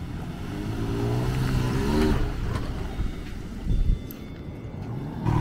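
Toyota Tacoma pickup driving on beach sand, its engine note climbing as it accelerates and then dropping about two seconds in. A short low rumble follows just before four seconds in.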